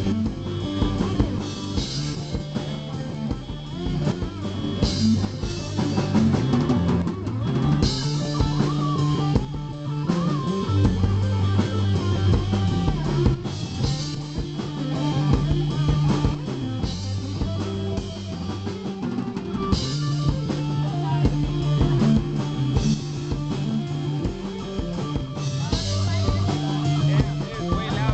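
Live rock band playing an instrumental passage: drum kit with bass drum and repeated cymbal crashes, amplified electric guitar and electric bass.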